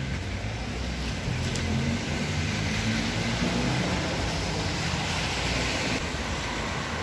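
Traffic on a wet city street: steady tyre hiss and engine hum from passing cars.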